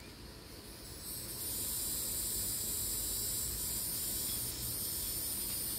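Steady high-pitched insect chorus, which swells to a louder continuous buzz about a second in and holds.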